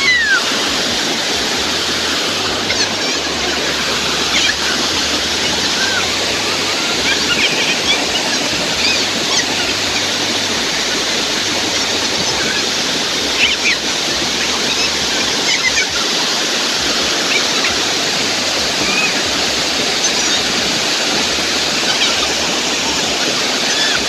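Waterfall pouring down a rock face into churning white water: a steady, dense rush.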